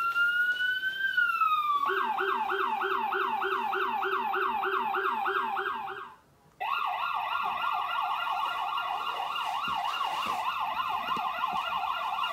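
Electronic toy siren of a battery-powered Hess toy truck: a slow wail that switches about two seconds in to a fast yelp of about four cycles a second, stops for about half a second midway, then starts yelping again.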